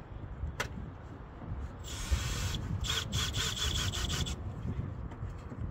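Hand sawing through wood: a burst of quick back-and-forth strokes, about six or seven a second, starting about two seconds in and lasting about two and a half seconds. A single sharp click comes just before.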